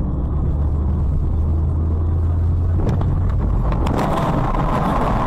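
Dashcam audio from inside a car: a steady low road and engine drone, then a couple of sharp knocks about three and four seconds in as the car is struck in a collision, followed by louder rushing, scraping noise.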